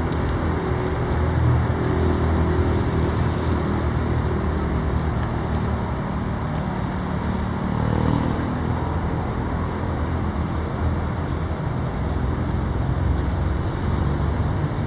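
Steady road traffic noise with a constant low rumble.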